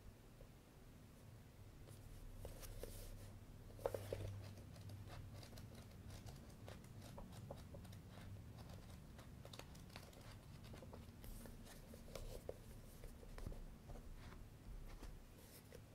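Pages of a paperback manga volume being flipped by hand: a run of small, soft paper flicks and rustles, with a louder rustle about four seconds in.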